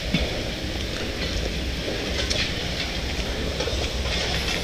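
Steady rushing of a waterfall with a low rumble underneath, and a few faint scuffs.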